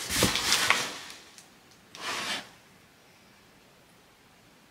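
Cardboard box being handled and its flaps pulled open: scraping, rustling cardboard in the first second, then one short rustle about two seconds in.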